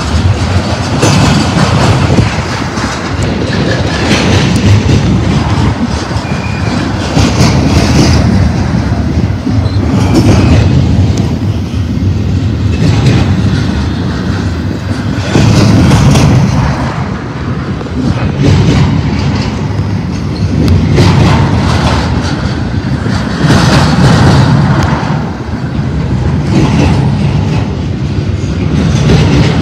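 Double-stack intermodal freight train's container well cars rolling past close by: steel wheels clattering over the rails, swelling every two to three seconds as each set of wheel trucks goes by.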